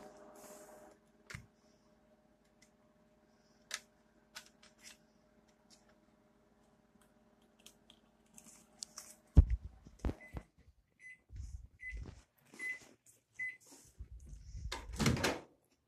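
Microwave oven running with a steady hum, which cuts off with a clunk about nine seconds in; it then beeps five times at an even pace, signalling that the cooking cycle has finished. A thump follows near the end.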